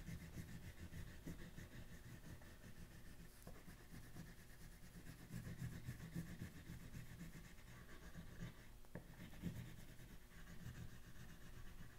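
Faint rubbing strokes of an oil pastel shading on paper, in uneven swells with a few light ticks.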